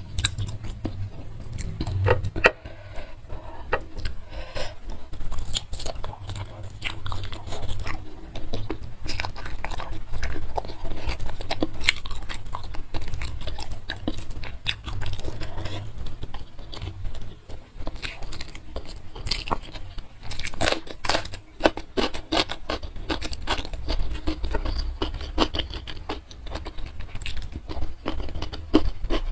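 Close-miked chewing and biting of chicken and rice eaten by hand, wet mouth sounds with many sharp clicks throughout.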